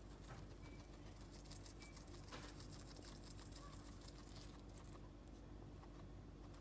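Faint rapid clicks of a guinea pig chewing a foxtail grass stalk, over a low steady hum.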